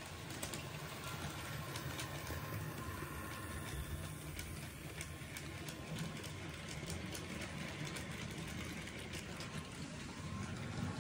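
Model railway goods train running past: a steady low hum from the locomotive's electric motor, with a rapid run of clicks from the wheels over rail joints as the wagons pass in the middle.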